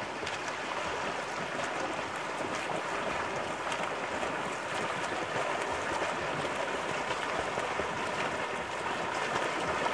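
Steady splashing and churning of water from a group of open-water swimmers' front-crawl strokes.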